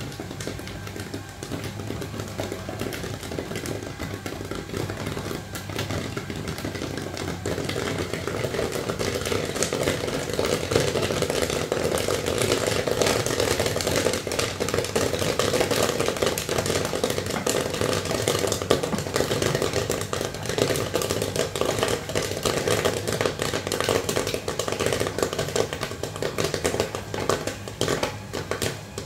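Popcorn kernels popping in the stirred pot of a gas-fired popcorn machine. There are many rapid pops that grow dense about eight seconds in and thin out near the end, over a steady low hum from the machine.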